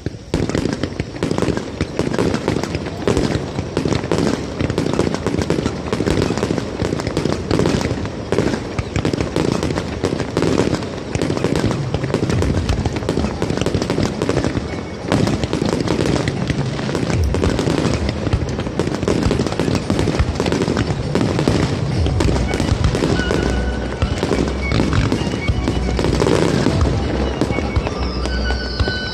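Fireworks display: shells bursting in quick succession, a dense, unbroken run of bangs and crackles.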